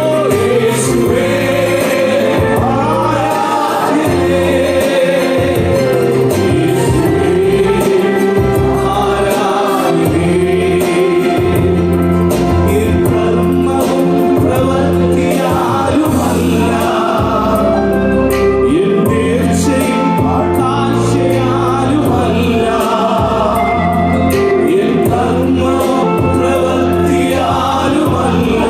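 Gospel worship song: several men sing together into microphones over an amplified accompaniment, with low bass notes held underneath.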